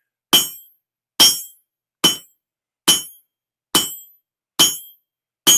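A 3-pound blacksmith's hammer striking hot steel bar stock on an anvil, seven steady blows a little under a second apart, each with a short metallic ring. The steel is being hammered down at the anvil's edge to draw out the end of a bottle opener.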